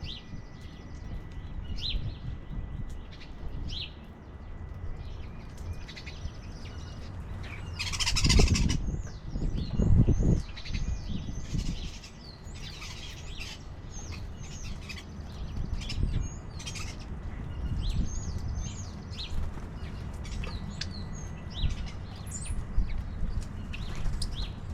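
Small birds chirping repeatedly in short high calls, with a brief loud rustling burst about eight seconds in and a low rumble underneath.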